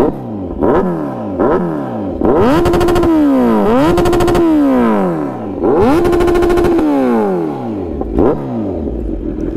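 Kawasaki Z900's 948 cc inline-four, fitted with a full-system aftermarket exhaust, being free-revved at a standstill. It gives a few quick blips, then three long revs that each hold a steady top pitch before falling back, and two smaller blips near the end. Very loud.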